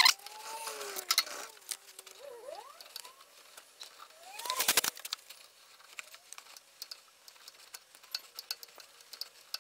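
A 5/16-18 tap squeaking in the steel as it is turned by hand, several short squeaks rising and falling in pitch, with one louder scrape just before the middle. Then small metallic clicks of the tap and its holder being handled.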